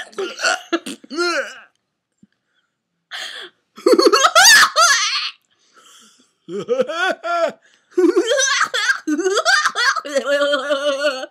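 People laughing in several bursts, with a long steady held vocal note near the end.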